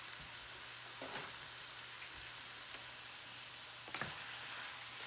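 Crawfish tails frying in melted butter and garlic in a skillet, a steady soft sizzle. A wooden spatula gives a light knock against the pan about four seconds in as stirring starts.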